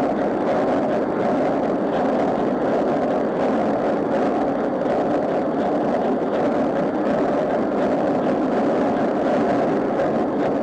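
Large Burmeister & Wain two-stroke crosshead marine diesel engine running steadily at low speed, a loud, even mechanical noise. This is its running-in after a piston replacement.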